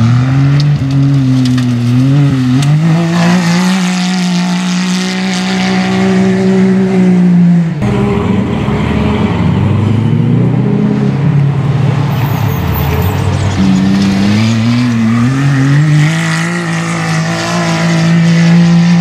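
Off-road side-by-side (UTV) race car engines revving hard, the engine note climbing and then holding high. About eight seconds in the sound switches abruptly to a rougher, lower engine noise. A high held engine note returns at about fourteen seconds.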